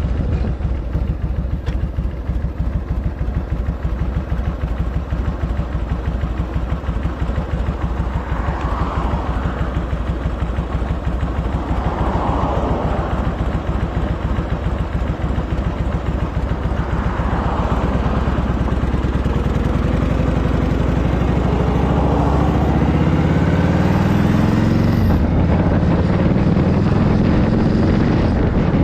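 Harley-Davidson Shovelhead V-twin engine running on the road after a top-end rebuild. Its note climbs steadily over the last several seconds as the bike speeds up.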